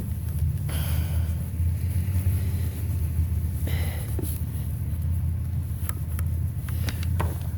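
Steady low rumble of an idling vehicle engine, with a few light clicks and a brief rustle from hands working at scrap.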